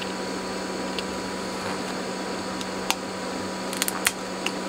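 A few short sharp clicks, mostly in the second half, as a replacement dual flip-flop IC is pressed into its DIP socket on a circuit board and the board is handled, over a steady electrical hum and hiss.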